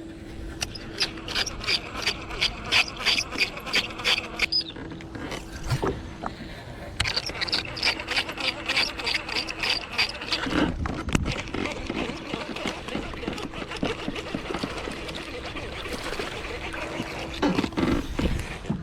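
Spinning fishing reel being cranked fast, squeaking and grinding with every turn of the handle in two runs of about four squeaks a second, over a steady low hum. The squeak and grind come from the reel itself.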